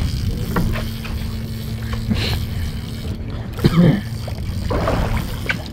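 Steady low hum of a charter fishing boat's idling engine, with wind and water noise; a brief louder knock about two-thirds of the way through.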